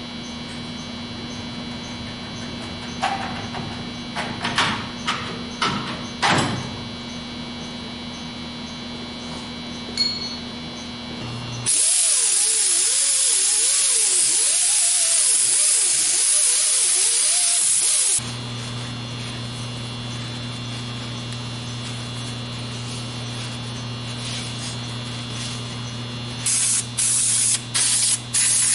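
Aerosol spray can sprayed onto a bare truck front spindle in a run of short hissing bursts near the end, after one long steady hiss of about six seconds in the middle. Earlier, a few clicks and knocks of hand tools over a steady shop hum.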